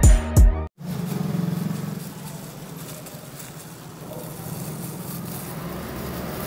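The last beats of an electronic intro track, deep bass-drum hits that drop in pitch. After a sudden cut comes a steady low rumble of background noise, louder for about the first second and then easing to an even hum.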